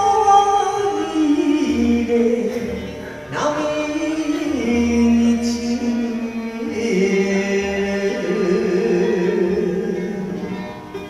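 A woman singing a Japanese enka song into a microphone over a karaoke backing track, amplified through loudspeakers, holding long notes with vibrato.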